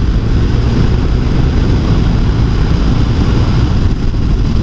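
BMW R1200RS boxer-twin engine running steadily while riding, with wind noise rushing over the microphone.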